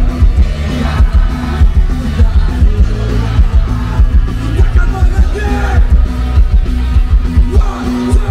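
Live rock band playing through a concert PA: electric guitars, bass guitar and drums, with a heavy bass and kick-drum low end.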